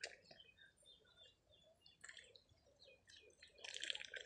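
A duck dabbling, its bill working in shallow muddy water with faint wet clicks and slurps, and a louder burst of rapid dabbling near the end.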